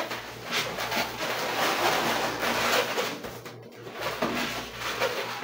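Latex twisting balloons (260s) rubbing against each other and against hands as they are handled, a rough rustling with small creaks, dropping off briefly a little past halfway.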